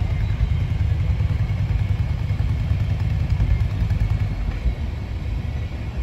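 Steady low rumble of a freight train's ethanol tank cars rolling past, mixed with the idling of nearby motorcycles.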